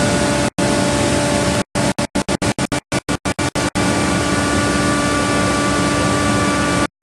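TYMCO regenerative-air street sweeper running and vacuuming leaves: a loud, steady rush of air and machinery with a steady whine. The sound cuts out abruptly several times and stutters rapidly on and off for about two seconds in the middle.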